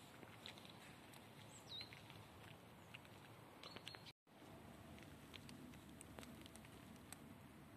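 Near silence: faint outdoor hush with a few soft ticks and one short, high chirp falling in pitch, like a small bird's call, early on. The sound drops out completely for a moment about four seconds in.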